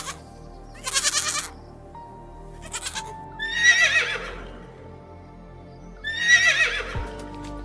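Farm animal calls over steady background music: a few short rough bursts, then two loud, quavering calls that each fall in pitch.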